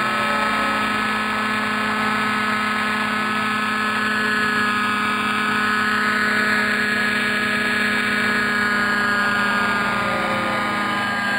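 Radio-controlled model helicopter hovering, a steady whine of motor and rotor with several held tones that shift only slightly in pitch.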